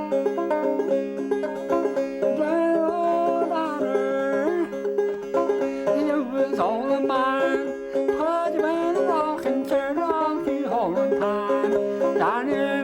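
Solo banjo playing an old-time tune, with open strings ringing steadily under the picked melody.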